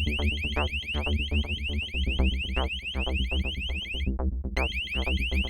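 STI-6402 Exit Stopper door alarm going off as a door is opened: a fast run of short rising electronic chirps, about five a second, broken briefly about four seconds in.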